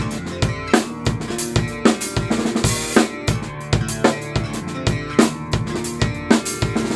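Rock music instrumental intro: a drum kit plays a busy pattern of kick, snare, rimshots and cymbals over sustained guitar and bass, with regular sharp drum hits.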